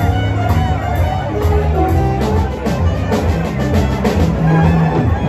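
Live jazz band playing a swing tune: drum kit, bass, keyboard, electric guitar and saxophone. A bass line steps from note to note under steady cymbal strokes.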